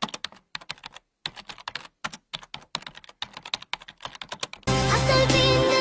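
Rapid computer-keyboard typing clicks, a typing sound effect laid over text appearing letter by letter, with a brief pause about a second in. Near the end, loud music starts abruptly.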